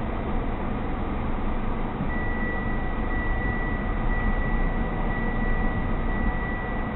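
Steady road and engine noise of a car driving, heard from inside the cabin. A thin, steady high whine comes in about two seconds in.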